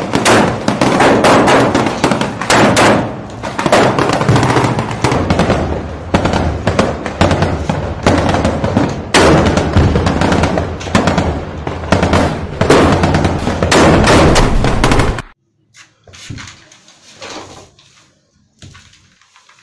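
Loud, rapid gunfire and explosions from a battle sound effect: a dense crackle of shots over a steady low rumble, cutting off suddenly about fifteen seconds in. After that, only faint room sound with a few soft knocks.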